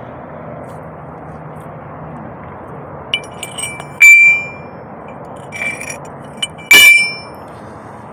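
A platinum nugget struck, ringing like a bell: a few light taps, then two loud strikes about three seconds apart, each leaving a high, clear ring that fades within about a second.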